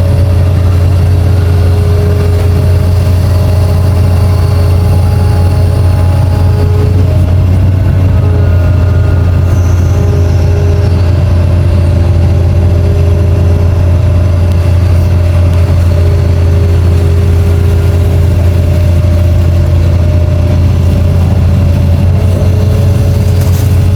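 Long-reach excavator's diesel engine running steadily with a deep hum, under fainter whining tones that shift in pitch now and then.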